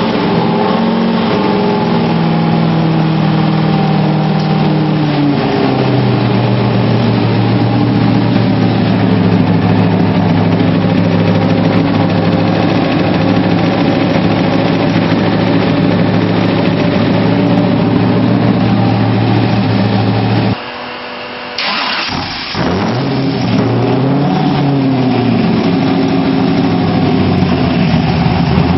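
Factory Five GTM supercar engine running in gear, its pitch stepping down in the first few seconds and then holding steady. About two-thirds of the way through the sound briefly drops away, then the engine note rises and falls again.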